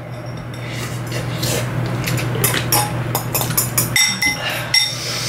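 A metal fork clinking and scraping against a ceramic bowl during eating, with repeated short clinks, several of them ringing, the clearest about two seconds in and again near the end.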